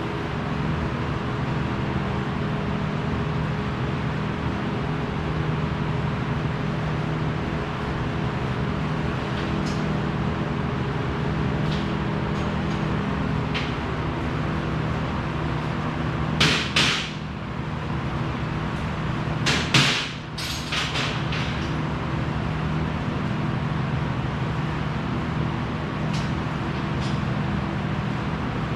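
Steady hum of shop machinery, with a few short, loud bursts of noise about halfway through.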